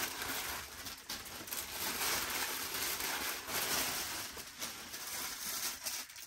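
Clear plastic bag crinkling and rustling as a jersey is pulled out of it, a continuous crackle of handling noise.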